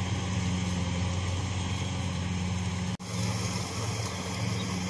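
Kubota rice combine harvester engines running steadily with a low hum, the machines working a standing rice crop. The sound breaks off for an instant about three seconds in.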